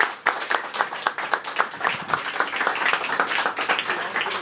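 Audience applauding, with many hands clapping quickly and unevenly.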